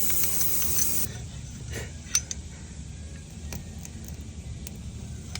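Air hissing out of a punctured tire around the plug insertion tool, cutting off suddenly about a second in. Then a few light clicks and taps as the sticky string plug is worked into the hole.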